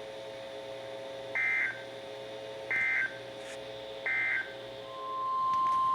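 Emergency Alert System end-of-message data tones: three short bursts of high-pitched warbling digital data about a second and a half apart, marking the end of a severe thunderstorm warning. Near the end a steady single-pitch alert tone fades in.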